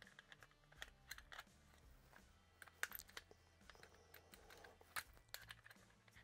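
Faint, scattered clicks and taps of a Springfield Armory Hellcat pistol's parts being handled during reassembly, as the slide and recoil spring are lined up to go back onto the frame.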